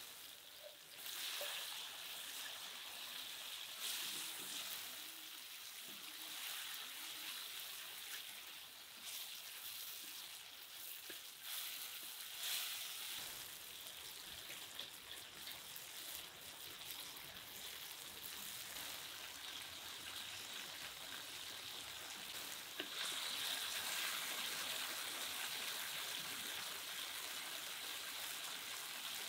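Chopped tomatoes, then sausage pieces and peppers, sizzling in hot oil in a large steel wok-style pan, with now and then a wooden spatula stirring through them. The sizzle gets louder late on.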